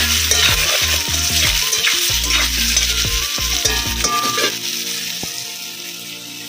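Boiled potato pieces sizzling as they fry in hot oil in a kadai. A metal spatula scrapes and knocks against the pan as they are stirred for the first few seconds, then the sizzling goes on alone, slowly getting quieter.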